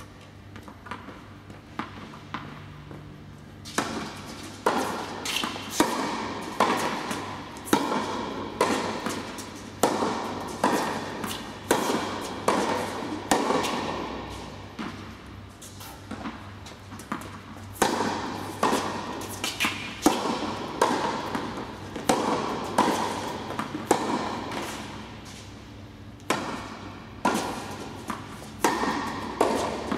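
Tennis rally on an indoor court: a ball struck by rackets and bouncing, sharp hits about once a second, each echoing in the hall. The rally starts a few seconds in and pauses briefly twice.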